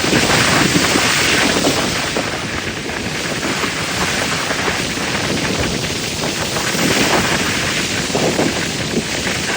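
Ocean waves washing over a pier, surging near the start and again about seven seconds in, with wind buffeting the microphone.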